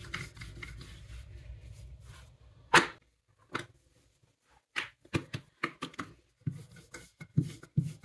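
Rolling pin rolling out stiff dough on a board: a low rumble at first, then a series of irregular knocks and taps as the pin strikes and shifts on the board.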